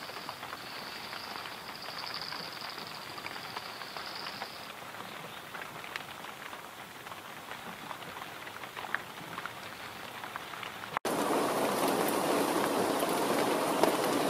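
Rain falling on grassland, a steady hiss with scattered drop ticks; about eleven seconds in it cuts abruptly to louder, heavier rain.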